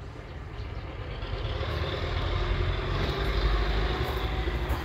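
Steady mechanical rumble with a hiss over it, swelling over the first two seconds and then holding.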